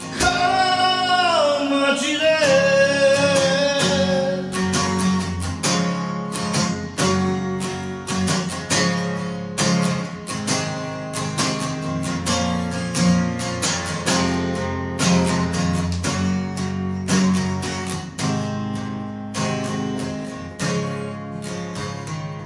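A man holds a long final sung note that wavers and falls in pitch over a strummed acoustic guitar. The guitar then strums on alone as an outro, growing softer toward the end.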